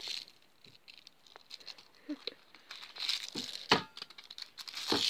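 Scattered soft rustles, crinkles and light taps, a louder click about three and a half seconds in: a kitten moving about on blankets inside a plastic pet carrier.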